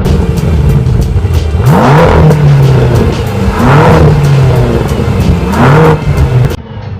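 BMW M6's 4.4-litre V8 engine revved three times, each rev rising sharply and falling back, about two seconds apart.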